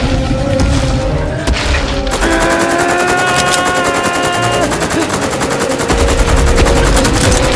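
Rapid automatic rifle fire, a film sound effect, starting about two seconds in and going at roughly ten shots a second, over background music.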